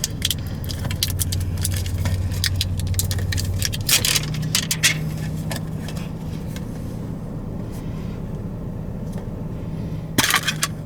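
Pokémon card pack wrapper crinkling and crackling as it is torn open by hand, busiest in the first half and again near the end. A steady low hum, likely an idling car engine, runs underneath.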